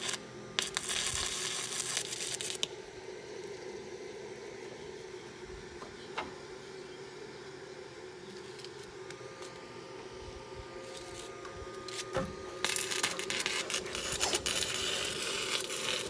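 Crackling, sizzling hiss in two stretches, at the start and again from about twelve seconds in, over a steady hum, with a few single clicks in the quieter middle.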